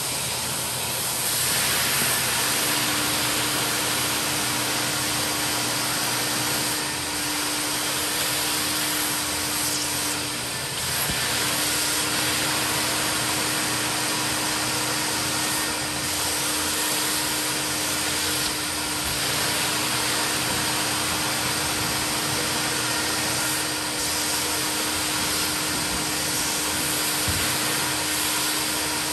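Mytee Lite 8070 carpet extractor running, its vacuum motor giving a steady loud suction hiss as the wand is worked over carpet, dipping slightly every few seconds. A steady hum joins about two seconds in.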